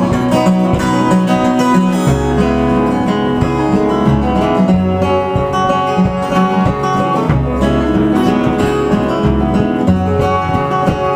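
Fingerpicked acoustic guitar playing an instrumental break in a folk ballad, with steady bass notes under the melody and no singing.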